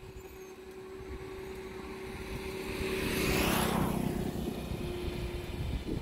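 A motor vehicle passing by, swelling to its loudest about three and a half seconds in and then fading, over a steady low hum.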